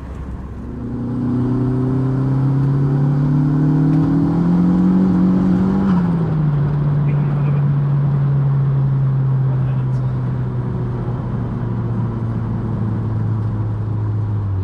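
Turbocharged 1.8-litre 20-valve four-cylinder engine in a Mk2 Golf pulling under acceleration, its revs climbing steadily for about five seconds. The pitch then drops sharply, and the engine settles into a steady, slowly falling drone.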